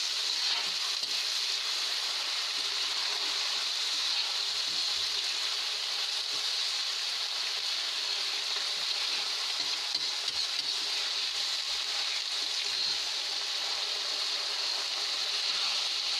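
Raw rice with cumin seeds and cloves frying in hot oil in a kadhai: a steady, even sizzle as the rice is roasted before the water goes in.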